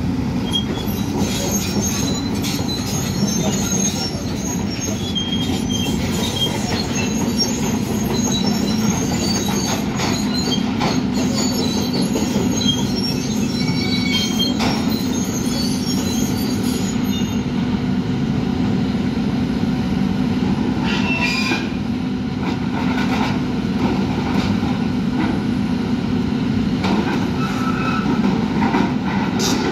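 Diesel engines of demolition excavators running steadily, with many high-pitched metal squeals and knocks as a grapple tears at and drags wreckage, thickest in the first half.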